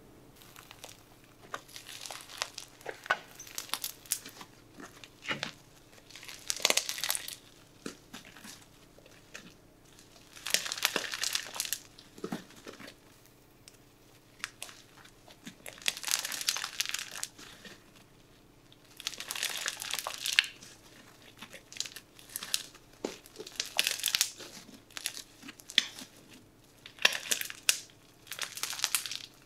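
Stretchy green slime being kneaded and pulled apart by hand, crackling and tearing in irregular bursts a second or so long as it is squeezed and stretched.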